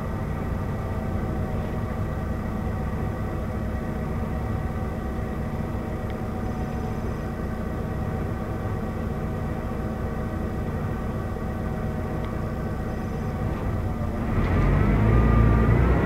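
Volvo B12BLE city bus's diesel engine idling steadily, heard from inside the passenger cabin. About fourteen seconds in it gets louder and rises in pitch as the bus pulls away.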